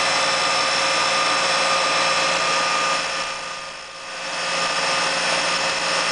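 CNC metal lathe running steadily with a whine of several steady tones as a turret-held drill bores into a spinning brass dowel. The sound drops away briefly about halfway through, then comes back.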